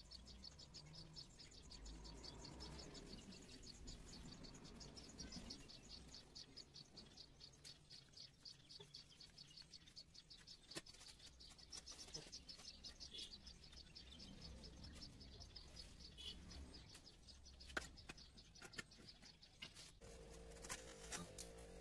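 Near silence with the faint, steady chirping of an insect, in rapid even pulses. A low steady tone comes in near the end.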